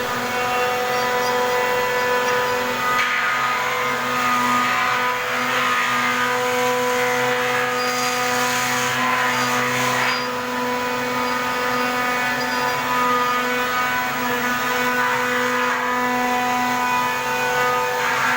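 Dual-head CNC router running with a steady, high spindle whine made of several tones. Rougher noise swells over it several times, around 3 to 5 seconds in, 8 to 10 seconds in, about 16 seconds in and again near the end.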